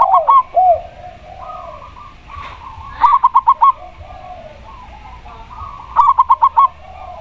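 Spotted dove and zebra dove cooing. Two bursts of five or six quick, clear notes come about three seconds apart, over softer, lower coos in between.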